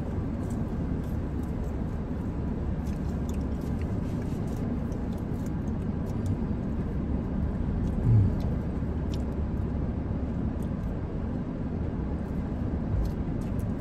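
Steady low rumble of a car heard from inside its cabin, with faint scattered clicks of chewing and handling food.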